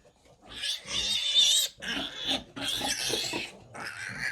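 A newborn piglet squealing loudly while being handled for teeth and tail clipping: about four shrill squeals in a row, the first starting about half a second in.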